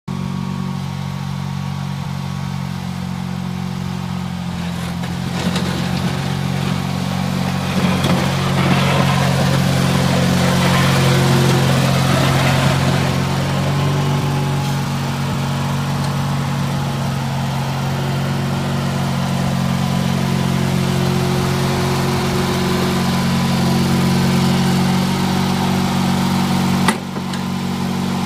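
Garden tractor engine running steadily at a constant speed while it pushes snow with a front V-plow. A rougher hiss rises between about six and thirteen seconds in, and there is one sharp click near the end.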